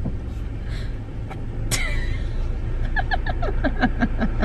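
Steady low rumble of a car cabin on the road. A sharp click comes about two seconds in, and a quick run of short voice sounds fills the last second and a half.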